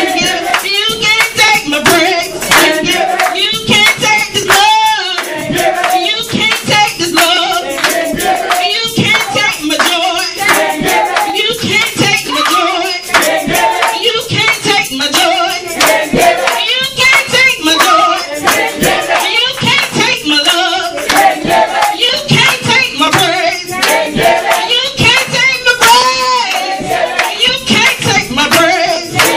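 A woman singing a gospel praise song into a microphone, with steady hand clapping keeping the beat.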